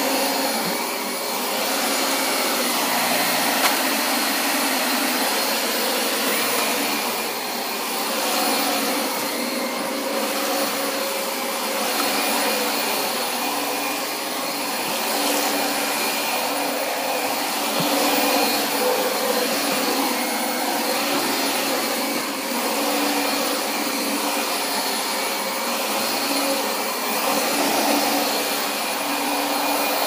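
Dyson upright vacuum cleaner running continuously, a steady motor whine over rushing air, vacuuming Zorb dry carpet-cleaning compound out of the carpet. Its loudness swells and dips slightly every few seconds as it is pushed back and forth.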